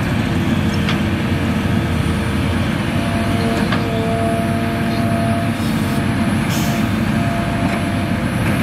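Large Hitachi hydraulic excavator at work digging and swinging a bucket of soil: a steady, heavy diesel rumble, with a thin steady whine coming in about three seconds in.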